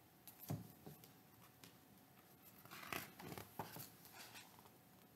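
Page of a large hardcover picture book being turned: a couple of soft knocks about half a second in, then a paper rustle and flap around three to four seconds in.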